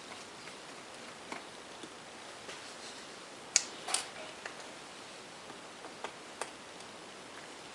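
A few small sharp clicks and taps of a screwdriver working tiny Phillips screws out of a laptop screen mount. The loudest click comes about three and a half seconds in, with another just after it.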